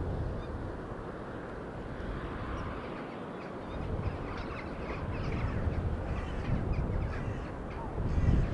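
Birds calling at the seaside: many short calls from about two seconds in, over a steady wash of surf and wind. Wind buffets the microphone with a louder gust near the end.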